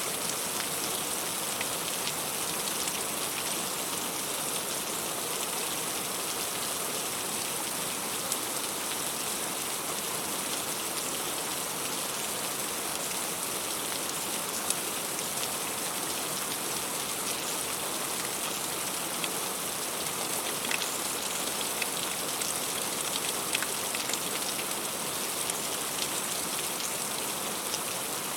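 Heavy rain falling steadily: an even hiss with scattered sharp ticks of individual drops striking.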